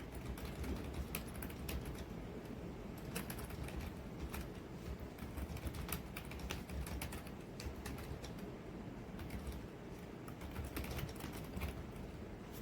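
Typing on a Logitech Wave Keys ergonomic keyboard: an irregular run of soft key clicks, a few sharper than the rest, over a low steady hum.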